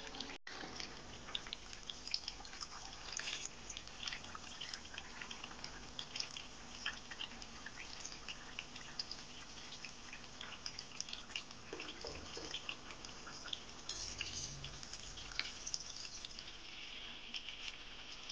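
Potato pinwheel samosas deep-frying in hot oil: steady sizzling with a dense run of small crackles and pops.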